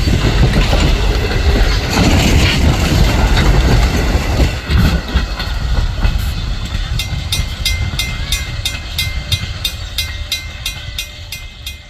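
A steam-hauled train rolls past with a heavy rumble of wheels on rails that fades away after about five seconds. Through it, and then clearly once it has gone, a grade-crossing bell dings steadily, about three strikes a second.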